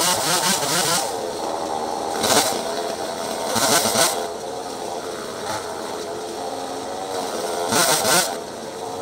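Two-stroke chainsaw running at high throttle for about the first second, then settling lower, with short revs about two, four and eight seconds in.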